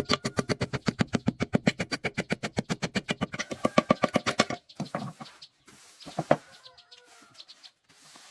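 Chickens clucking: a fast, even run of clucks, about ten a second, that stops about four and a half seconds in, then a few softer scattered calls.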